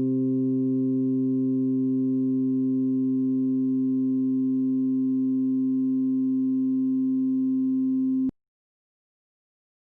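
Korg EX-800 synthesizer holding one steady, sustained bass note with a few overtones, which cuts off suddenly about eight seconds in.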